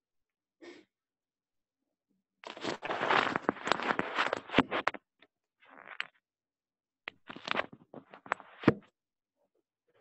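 Rustling and knocking of a device being handled right at its microphone: a long burst a few seconds in, then shorter bursts with sharp clicks.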